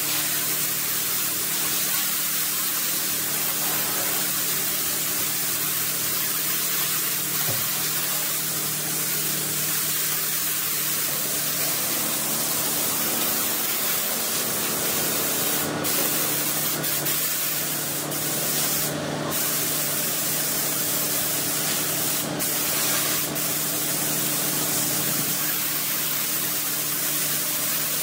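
Gravity-feed air spray gun hissing steadily as it sprays paint, with a faint low hum beneath and a few brief clicks in the second half.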